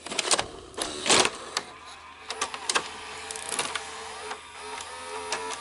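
A VHS cassette is pushed into a Sony SLV-R5UC S-VHS VCR with a few clicks and knocks. About two seconds in, the machine's loading motor starts to whir with a wavering whine as the mechanism draws the cassette in and loads it.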